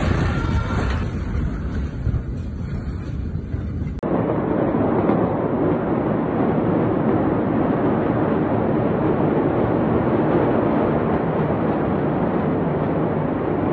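Steady rushing noise of wind on a phone microphone with a low rumble underneath. About four seconds in it cuts abruptly to a steadier, duller hiss without the high end.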